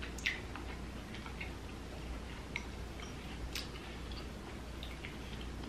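Sparse, sharp clicks and small cracks of a cooked king crab leg's shell being pried apart and picked with the fingers, at irregular intervals over a faint low hum.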